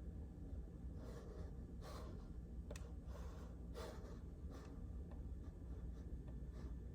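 Slow, irregular soft keystrokes on a JJK84 mechanical keyboard with Outemu Silent Peach linear switches, dampened silent switches giving a muted thock, over a low steady hum.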